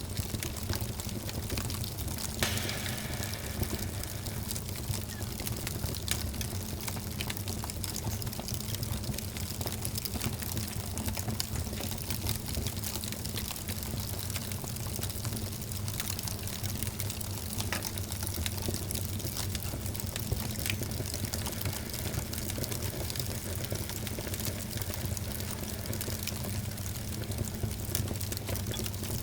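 Wood fire in a fireplace crackling steadily, with many small pops and snaps over a soft rushing hiss, and one louder pop about two seconds in.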